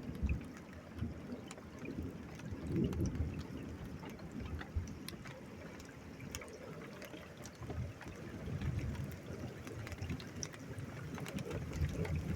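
Drips and raindrops ticking irregularly as the rain returns, with low rumbles rising and falling every few seconds.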